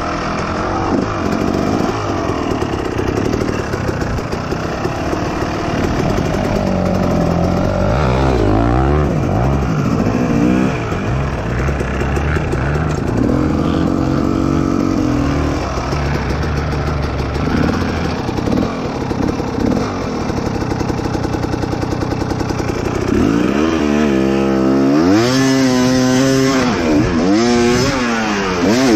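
Dirt bike engine revving hard and accelerating, its pitch climbing and dropping again and again as the throttle is worked and gears change; the revs rise and fall loudest near the end.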